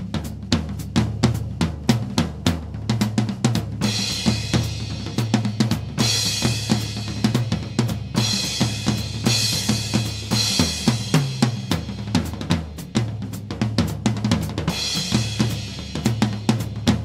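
Instrumental background music with a steady drum-kit beat over a bass line; cymbals wash in and out over several bars.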